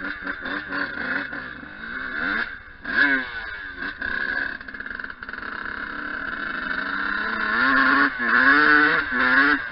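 Yamaha YZ125's 125cc two-stroke single-cylinder engine being ridden off-road and revved hard. It gives quick throttle blips in the first couple of seconds and a sharp rev about three seconds in. Then it climbs steadily in pitch, with a few more blips near the end.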